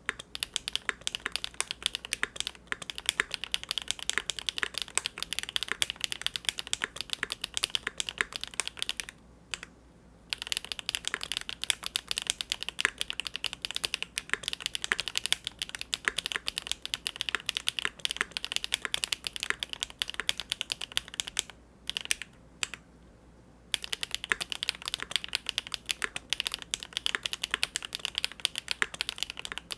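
Fast continuous typing on a Big Whale custom mechanical keyboard with GEON Raw Zero switches on a polycarbonate plate. Rapid keystroke clacks, with two brief pauses about nine seconds in and about twenty-two seconds in.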